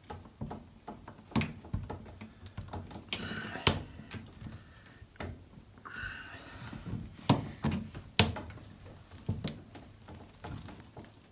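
Clear plastic sap tubing being twisted and pushed onto a plastic fitting by hand: scattered knocks and clicks, with a couple of short squeaks as the tubing rubs on the fitting, and a sharp click about seven seconds in. The tubing is stiff from the cold and hard to get on.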